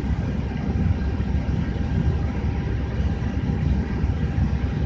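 Steady low rumble with a faint hiss: the background noise of an Airbus A320 cockpit on the ground with its systems powered up.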